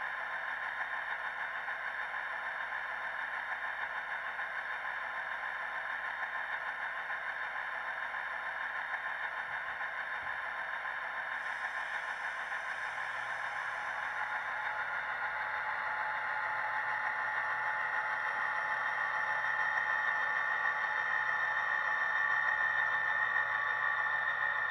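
Diesel engine sound of an EMD SD40-2 played by an ESU sound decoder through the HO-scale model's small onboard speaker, running steadily and growing gradually louder over the last third.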